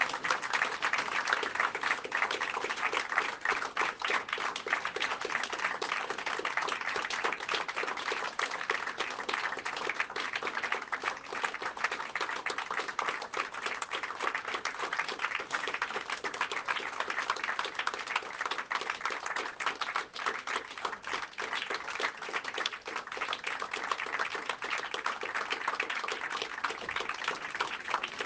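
A crowd applauding, many hands clapping steadily.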